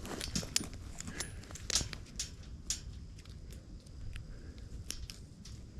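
Irregular small clicks and light rattles of hands working reusable nylon cable ties on a wire cattle panel.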